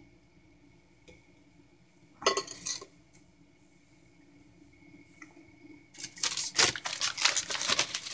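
A short clatter of dishware on the table about two seconds in, then from about six seconds on a steady crinkling and rustling of a plastic wrapper being handled.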